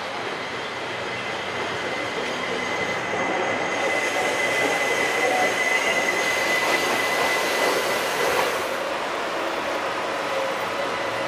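Articulated light rail train pulling into a station: wheels running on the rails, growing louder as it draws alongside, with a steady high-pitched squeal as it slows. The squeal fades and the rolling noise drops off abruptly about eight seconds in as the train comes to rest.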